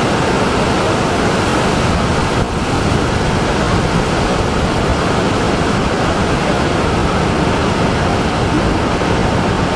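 Heavy sea surf breaking and rushing ashore: a loud, steady roar of waves.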